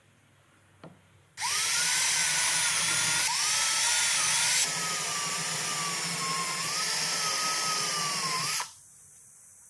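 Cordless drill boring holes into pine, its motor whining for about seven seconds; the pitch sags and recovers a few times as the bit bites into the wood, and it stops shortly before the end.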